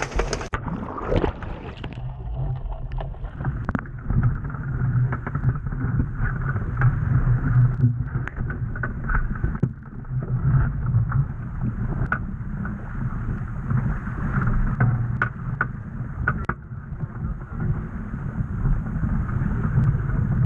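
Sailing dinghy under way: wind buffeting the microphone over the rush of water along the hull, with scattered sharp knocks.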